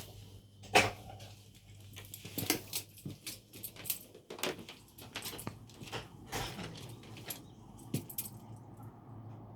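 Scattered clicks, clinks and light knocks of hard objects being handled, over a low steady hum, with one sharper knock about a second in.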